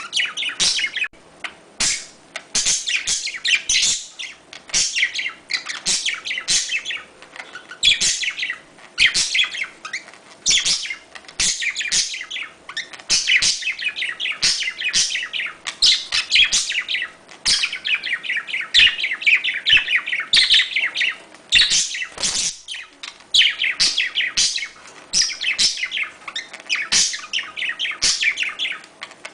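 Budgerigars chattering and warbling without pause, rapid chirps in dense runs with only brief gaps: the budgie mating chatter that is played to bring budgies into breeding condition.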